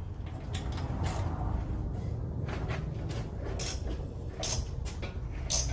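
Socket wrench and metal parts clicking and knocking now and then as bolts are tightened on the car, over a low steady rumble.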